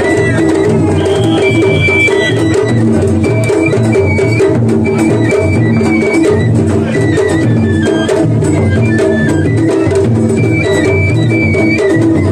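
Japanese festival float music (matsuri-bayashi): taiko drums beaten in a steady, dense rhythm while a high bamboo flute plays a melody of short held notes over them.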